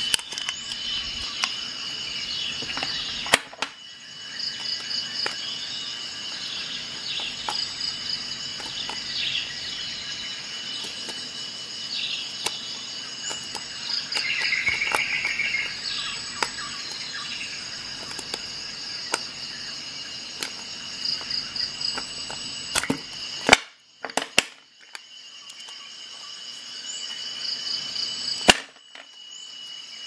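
Insects chirping steadily in the background, high-pitched with repeating pulsed trills. A few sharp clicks come from the metal multi-tool being handled, the loudest about two-thirds of the way in and again near the end.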